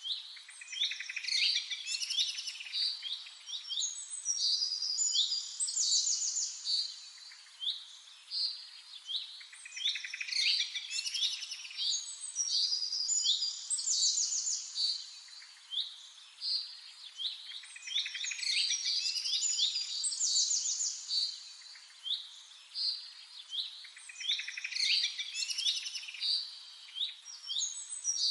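A songbird singing long, varied phrases of high whistles and rapid trills, each phrase a few seconds long and repeated about every eight seconds.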